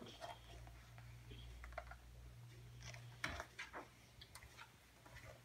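Faint rustling and soft clicks of paper as a page of a large picture book is turned, the loudest rustle a little past three seconds in.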